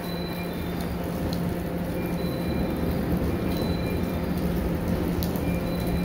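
Steady low hum under an even rushing noise inside a JR 103-series electric train car, slowly growing a little louder.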